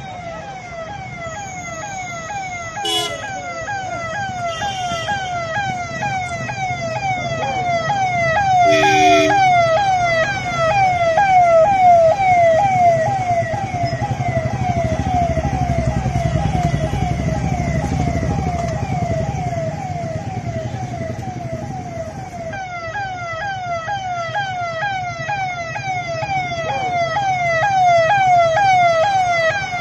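Police vehicle siren wailing in a fast repeating falling sweep, about two sweeps a second, over the rumble of the convoy's engines, which grows loudest about halfway through as the vehicles pull out past.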